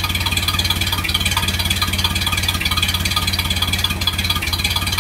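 1931 Ford Model A's four-cylinder flathead engine idling with a steady, even exhaust note, running smoothly on freshly replaced points, condenser and distributor wire.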